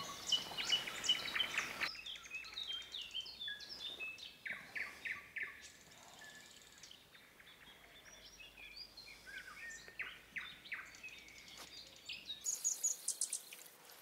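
Several wild songbirds singing and calling in spring woodland: overlapping short chirps, whistles and trills, sparser in the middle, with a quick run of repeated high notes near the end.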